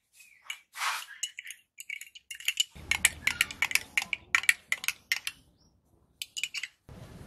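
Metal teaspoon stirring tea in a glass tumbler, clinking quickly and lightly against the glass.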